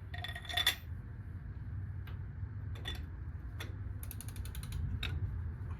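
Metal tools clinking, then a socket ratchet clicking: scattered single clicks and a quick run of about ten clicks a little past four seconds in, as the 21 mm socket is worked onto the bottom suspension nut.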